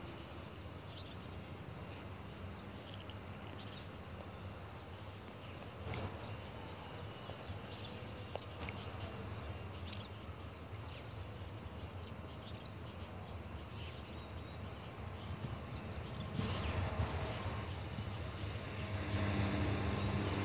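Insects calling in one steady high tone, with the low rumble of an approaching electric locomotive and its train growing louder over the last few seconds.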